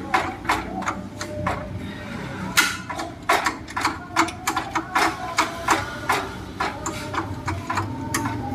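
A run of sharp knocks and taps, irregular, about two or three a second, over a faint steady hum.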